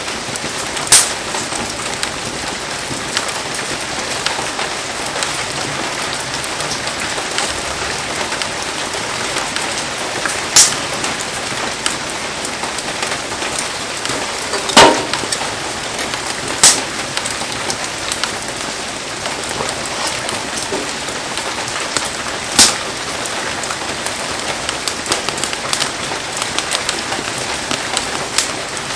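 Heavy rain falling steadily in an even hiss, broken by about five sharp, loud pops spread through it.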